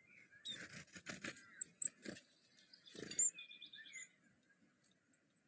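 Several scratchy rustling bursts, then about three and a half seconds in a short bird trill of quick, evenly repeated high notes, under a faint steady high whine.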